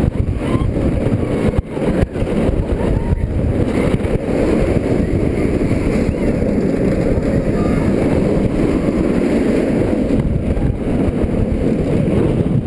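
Wind rushing over the microphone together with the running noise of an inverted roller coaster train at speed on its steel track, a steady low rush that briefly drops about one and a half seconds in.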